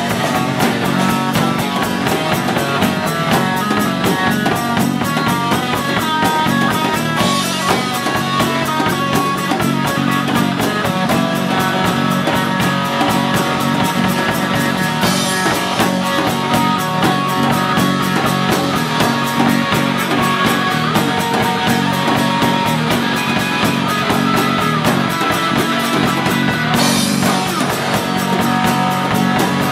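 Live rock band playing an instrumental passage: strummed acoustic guitar and electric guitar over a drum kit, with a cymbal crash about 7, 15 and 27 seconds in.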